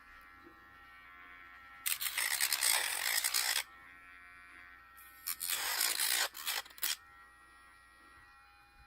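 Electric pet nail grinder's small motor running with a steady whine, and two loud bursts of grinding, starting about two and five seconds in and each lasting under two seconds, as the spinning grinding wheel is pressed against a dog's claw.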